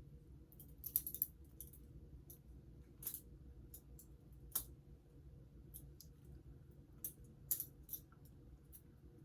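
Balisong (butterfly knife) being flipped through a combo, its handles and blade clicking against each other in sharp, irregular clicks: a quick cluster about a second in, then single clicks or pairs every second or two.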